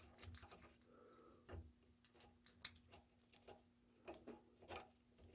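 Near silence: a few faint, scattered clicks and light knocks, the handling of a tap and tap guide during hand tapping, over a faint steady hum.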